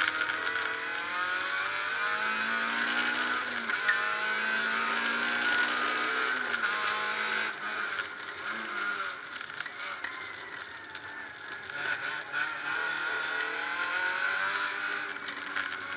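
Peugeot 306 rally car's engine heard from inside the cockpit at full stage pace, revving up through the gears in a series of rising pulls broken by gear changes. It eases off briefly past the middle before pulling hard again, with sharp knocks and rattles from the car over the road.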